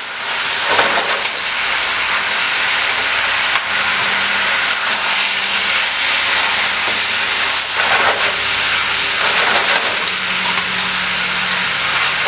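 Chicken and vegetables frying in curry in a stainless steel skillet: a loud, steady sizzle, stirred with metal tongs that now and then scrape or click against the pan.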